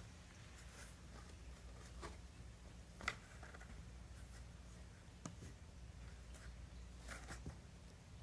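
Faint scratching and rustling of a cat's claws against a corrugated cardboard scratch lounger as it wrestles a fabric toy, with a few short sharper scrapes about two, three and five seconds in.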